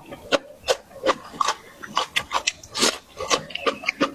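Close-miked eating: wet chewing and lip-smacking, a quick irregular run of sharp clicks and squelches from the mouth, with one longer noisy slurp or crunch about three seconds in.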